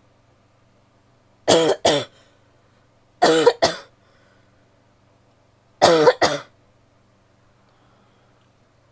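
A woman coughing in three short fits, each of two quick coughs, a couple of seconds apart.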